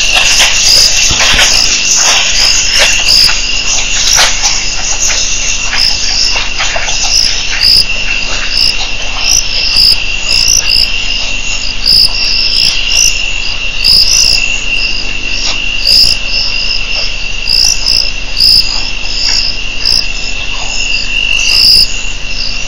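Night insects chirping: a steady high trill with a second insect's short chirps repeating about one and a half times a second. Scattered faint clicks in the first few seconds.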